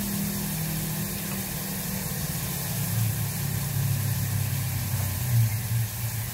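A steady low mechanical hum with an even hiss over it; the hum drops in pitch about two and a half seconds in.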